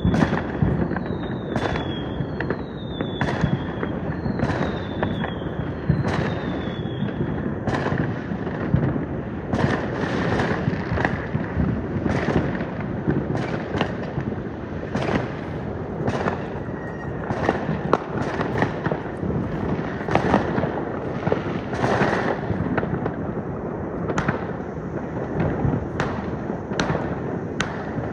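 Many New Year fireworks going off at once: a continuous barrage of bangs and crackling, with five short falling whistles over the first several seconds.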